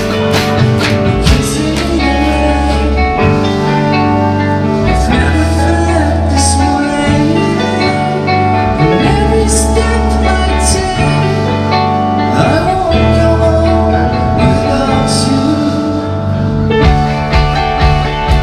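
Indie rock band playing live: electric guitars, bass, keyboard and drums, with a man singing through the middle. Drum hits are dense at the start and pick up again near the end.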